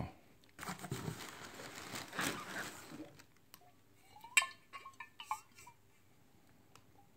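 Packing peanuts and plastic liner rustling as a glass bourbon bottle is pulled out of its cardboard box, then a sharp glass clink about four and a half seconds in, followed by a few lighter clinks and taps.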